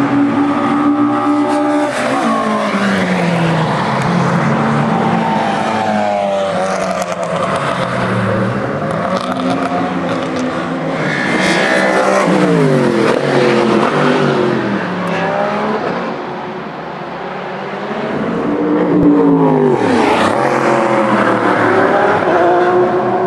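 Racing cars passing one after another at speed, engines at high revs, each one's pitch dropping sharply as it goes by; the loudest pass-bys come about halfway through and again near the end.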